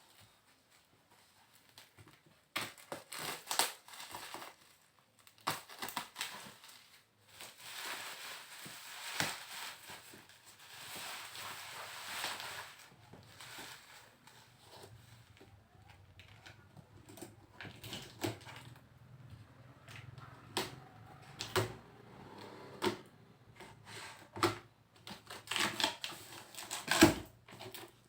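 Unpacking a boxed PC case: cardboard and plastic wrapping rustling and crinkling, with scattered knocks and clicks of the box and case being handled.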